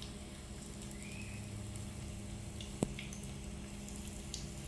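Green-rice-flake (cốm) balls frying in shallow oil in a pan, a quiet sizzle with scattered small crackles over a steady low hum. One sharp click about three seconds in.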